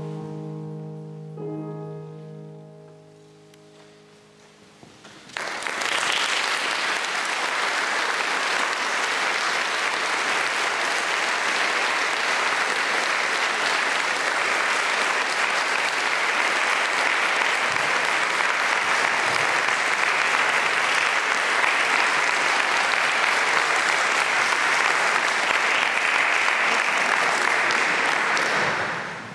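Closing chords of a grand piano ringing and fading away, then an audience applauding steadily for over twenty seconds, the clapping dying down near the end.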